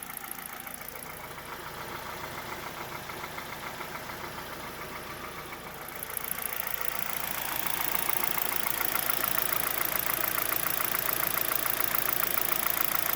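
Hyundai Solaris's 1.6-litre G4FC four-cylinder petrol engine idling with a rapid, even knock from the top of the engine near the power-steering pump, a knock that comes on as the engine warms; the owner suspects piston slap or valves tightening with heat. The sound grows louder about six seconds in.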